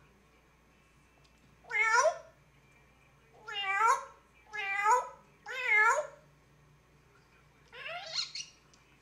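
African grey parrot imitating a cat's meow, five meows in a row with three in quick succession in the middle; the last meow is shakier and broken up.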